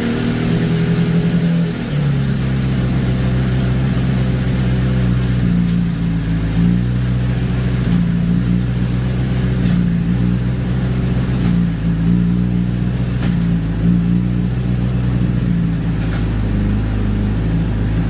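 Honda CBR600RR inline-four engine with a Yoshimura slip-on exhaust running steadily on a rear stand, its pitch stepping up and down a little several times as the bike is shifted up through the gears to program a gear indicator.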